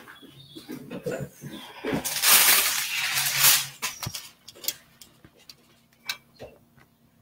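Handling noise as the recording device is gripped and repositioned: about a second and a half of loud rubbing and rustling on the microphone, then a few light knocks and clicks.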